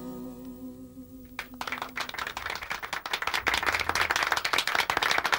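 A live song with band accompaniment ends on a held, wavering final note. An audience starts applauding about a second and a half in, and the clapping grows louder.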